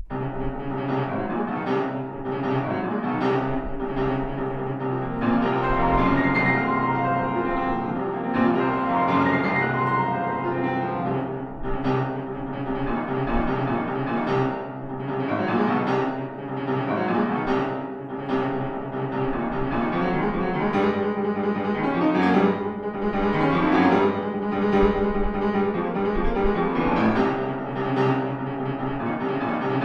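Solo Longato grand piano playing a fast, loud classical piece that begins suddenly out of silence at the start, with dense, rapid strikes of notes and chords.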